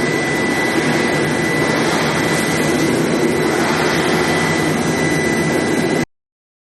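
Oil drill pipe induction hardening and tempering line running: a loud, steady industrial noise with a constant high-pitched whine over it. It cuts off abruptly about six seconds in.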